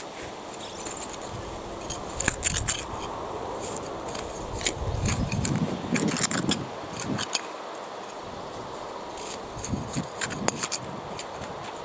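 Intermittent light clicks and scrapes of seedlings being planted out by hand into soil, with a softer rustle in the middle.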